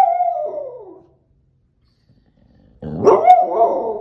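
A dog vocalizing in two drawn-out, pitched calls that fall in pitch as they fade. The first dies away about a second in, and the second starts nearly three seconds in.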